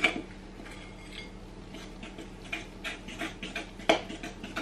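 A fork clinking and scraping against a glass mixing bowl while stirring doughnut batter: irregular clicks, with a louder clink at the start and another about four seconds in.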